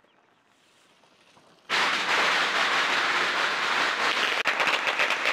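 A long string of Chinese firecrackers going off. After a near-silent start, a dense, rapid crackle of bangs begins suddenly under two seconds in and keeps going without a break.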